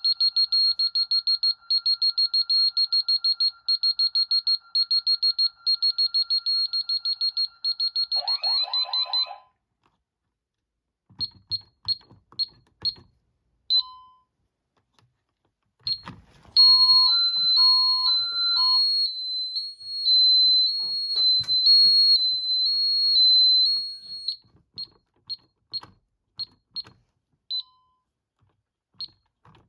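An Ademco 6137 alarm keypad's built-in sounder beeps a high, fast-pulsing alarm tone, about four beeps a second, which stops about eight seconds in. Then come scattered short single beeps. A high two-tone alternating warble plays for about eight seconds, and a few more short beeps follow.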